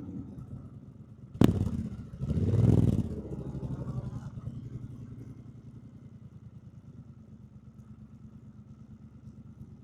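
Triumph Bonneville T120's 1200 cc parallel-twin engine running at low revs with an even rumble. About one and a half seconds in there is a sharp click, then a short loud surge before it settles back to a steady low running.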